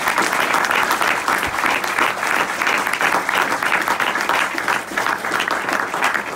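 Audience applauding: many hands clapping steadily, easing off slightly near the end.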